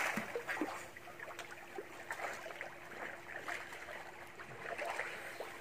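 Swimming-pool water lapping and sloshing, with many small irregular splashes from people swimming; it fades a little over the first second.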